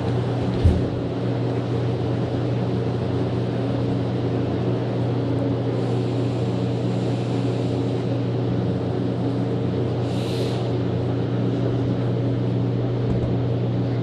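Inside a rubber-tyred NM-79 metro car running steadily out of a station: a continuous motor hum with running rumble. There is a single knock about half a second in and a short hiss about ten seconds in.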